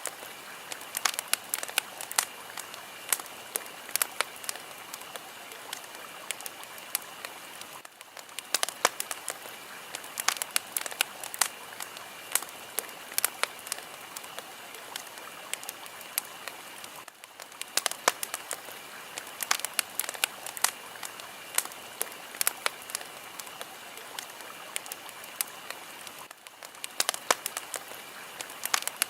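Fire crackling: a steady hiss dotted with frequent sharp pops and snaps, with a brief dip in the hiss about every nine seconds.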